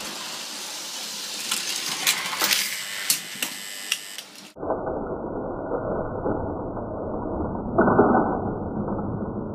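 Lionel O gauge electric toy train running past close by on three-rail metal track, with a steady clattering run and wheels clicking over the rail joints. The sound turns duller about halfway through and swells near the end.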